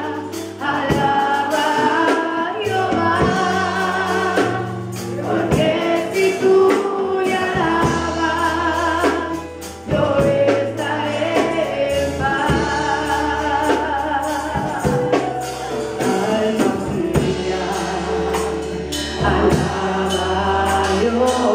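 Live Spanish-language Pentecostal worship song, with a woman and a man singing into microphones over an instrumental backing of held bass notes and percussion.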